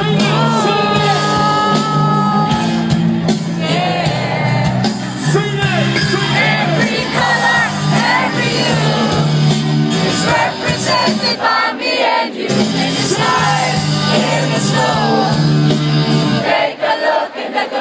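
Live concert music: a sung melody over a steady bassline, with shouts from the crowd.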